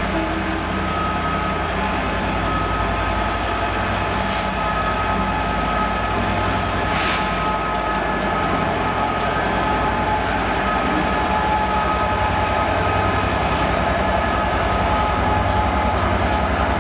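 Train at the platform running steadily, with a low rumble and a steady whine. Two short hisses come about four and seven seconds in.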